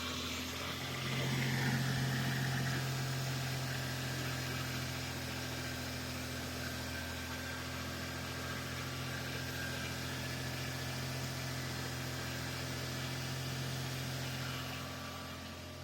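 1999 Toyota Tacoma's 3.4-litre V6 idling steadily, with a slight swell about a second in. It runs smoothly now that its misfire (codes P0300 and P0306) has been fixed, without the earlier bucking 'boom, boom, boom'.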